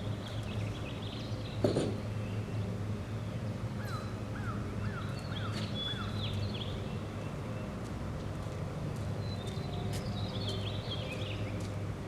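The homemade sawmill's engine running steadily at a low hum, not cutting, while small birds chirp in quick repeated notes. A single sharp knock sounds just under two seconds in.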